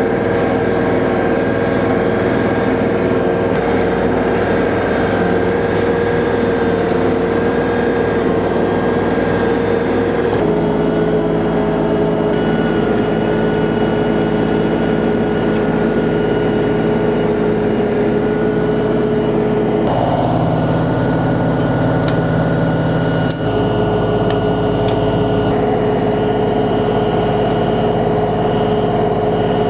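LS XG3140H compact tractor's diesel engine running steadily under work. Its note changes abruptly twice, and there is a single sharp click near the end.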